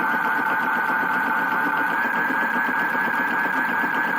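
Battery-powered toy washing machine's small electric motor running, turning the drum with a steady whine that rises slightly in pitch.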